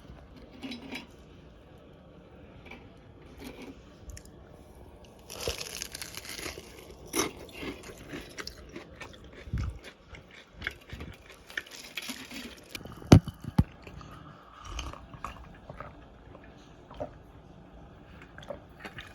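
Crunching bites and chewing of crispy fried onion kakiage, with crackly stretches of crunching and scattered sharp clicks.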